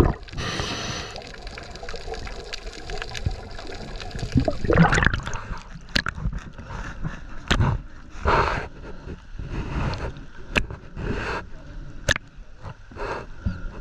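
Water gurgling and sloshing in irregular surges, each about a second long and a few seconds apart, with a few sharp clicks.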